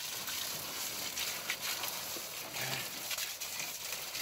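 Water spraying from a garden hose onto broad taro leaves and soil, a steady hiss.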